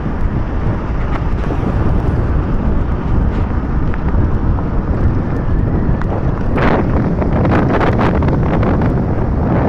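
Wind buffeting the microphone of a camera riding on a moving motorcycle, over the steady rumble of the ride. The buffeting turns gustier and more broken about two-thirds of the way through.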